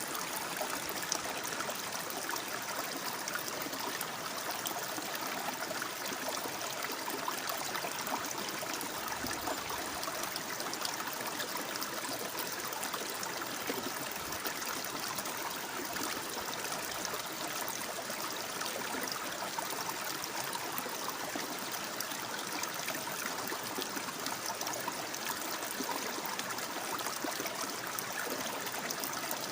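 Water flowing and babbling, a steady, unbroken rush of running water.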